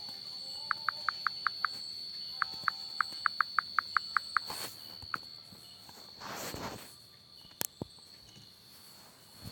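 Insects shrilling in one steady high tone, with two quick runs of short chirps, about six a second, in the first half. A few rustling swishes and one sharp click follow near the end.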